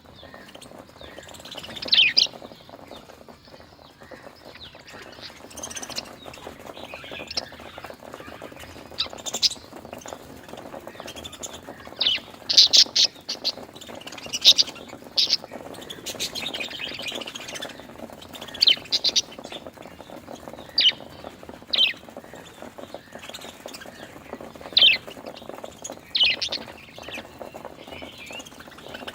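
Budgerigars chirping and chattering: sharp high chirps every second or two, some in quick pairs, over steady background chatter.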